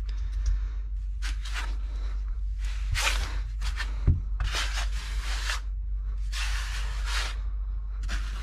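Notched trowel scraping construction adhesive across a plywood subfloor in repeated rasping strokes, about one a second, over a steady low hum.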